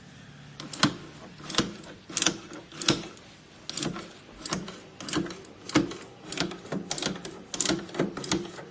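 Doser lever on a Cimbali burr grinder being pulled and released over and over: a mechanical clack about every two-thirds of a second, about a dozen in all, sweeping ground coffee out of the doser chamber. The grinder motor is off.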